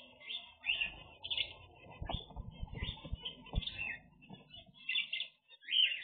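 Small aviary finches, zebra finches among them, calling with short chirps in quick bursts of several at a time. Underneath, a low rumble with a few dull knocks around the middle.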